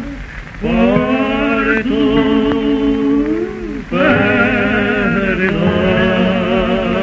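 Two male voices singing a tonada in long, held notes with vibrato, over guitar accompaniment, on an early-1930s 78 rpm record.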